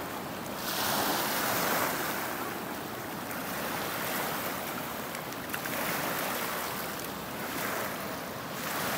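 Waves of a swollen monsoon river washing against a pebble bank: a steady rush of water that swells and eases every second or two.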